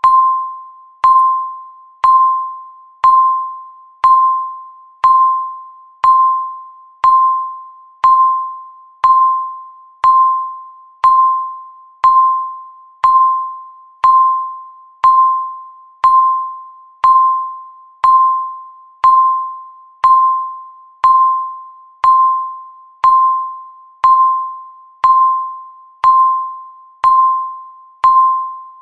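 Countdown timer beeping once every second: a single clear tone that strikes sharply and fades before the next, repeating evenly.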